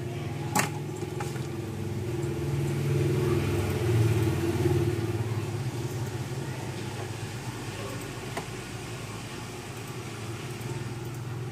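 A low rumble that swells a couple of seconds in and fades again, with one sharp click about half a second in.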